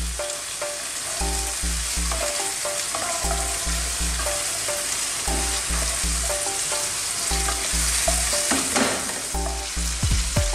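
Prawns, onion, garlic, ginger and green chillies sizzling in hot oil in a non-stick pan, stirred with a wooden spatula as the prawns cook until pink.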